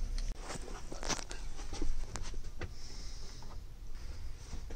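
Plastic interior trim panels of a truck cab being handled and fitted: scattered clicks and light knocks, with a short rustling scrape about three seconds in.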